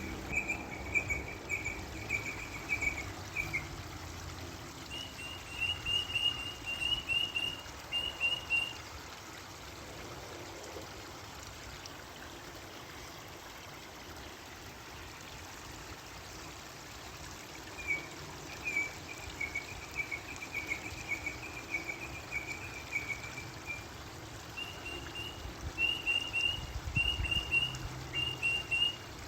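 A bird chirping in fast, evenly spaced trains of high notes, in four bouts, over a steady hiss of running water.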